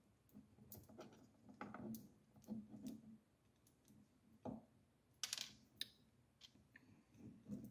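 Faint clicks, light taps and rustling from fingers handling a 3D printer's hotend heater block, nozzle and thermistor wires as the thermistor is fitted back in, with a brief louder rustle about five seconds in.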